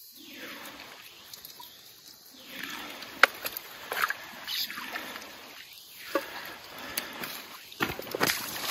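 A landed Chinook salmon thrashing in a landing net in shallow river water while the net is handled: irregular splashes and sloshing, more frequent and louder toward the end as the fish is lifted from the water.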